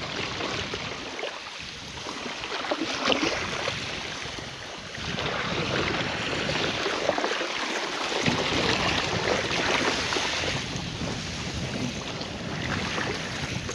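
Wind buffeting the microphone over the sound of sea water washing. It is a steady rushing noise that swells about five seconds in and eases again near the end.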